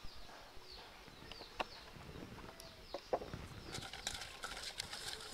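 Faint short bird chirps, then from about three and a half seconds in the paper liner of a cake tin crinkling and rustling as fingers rub oil over it.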